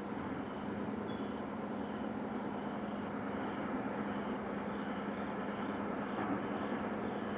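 Unbroken, steady drone of noise with a constant low hum running through it, of unidentified origin; the recordist hears it as coming from the sky to the east. A faint high chirp repeats about twice a second over it.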